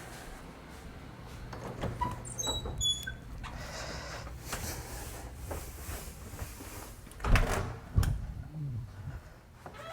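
Scattered knocks and light clatter of objects being handled, with a few short squeaks about two to three seconds in and two sharp thumps about seven and eight seconds in.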